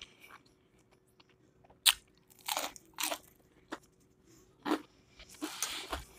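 Close-up chewing of crunchy battered fried food: a handful of separate crunches with quiet chewing between them, the sharpest about two seconds in, and a soft hissy rustle near the end.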